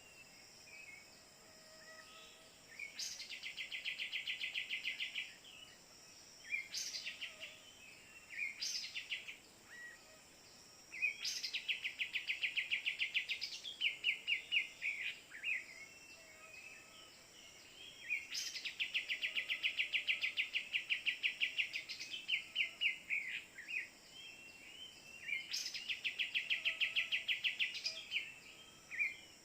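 Kapas tembak bulbul calls: repeated bursts of rapid, evenly spaced chattering notes, each about two seconds long, over a steady high insect hum.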